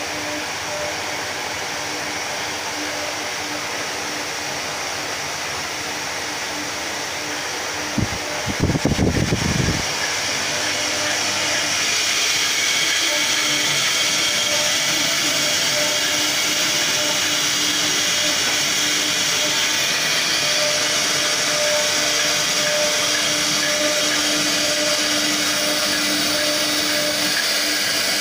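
Steady whirring of a running ceiling fan, with a faint hum. A short low rumble of handling noise comes about eight seconds in, and the whir is a little louder after it.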